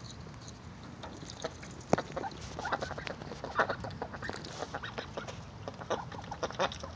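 Ducks dabbling their bills at the water's surface in a galvanized stock tank: a quick, irregular run of small wet clicks and splashes, starting about a second and a half in, with one sharper click about two seconds in.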